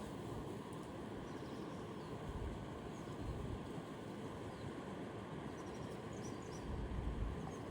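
Steady rush of river water with wind buffeting the microphone, stronger near the end, and a few faint bird chirps.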